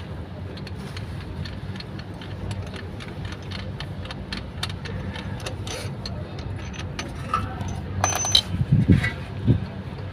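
Light metallic clicks and rattles of hand tools and screws against small parts, over a steady low hum. A few louder knocks come about eight to nine seconds in.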